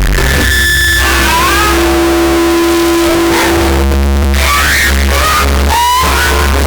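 Loud, heavily distorted and slowed-down electronic music remix with a stretched cartoon burp, long droning pitched tones and short gliding squeals over a noisy haze.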